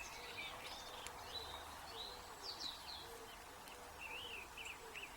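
Faint birdsong: scattered short chirping notes, turning into a quick run of rising and falling notes near the end.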